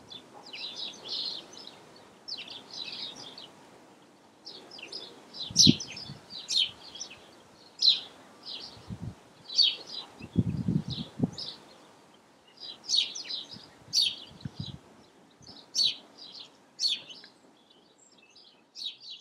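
Small birds chirping in many short, high calls, with a few low thumps in between.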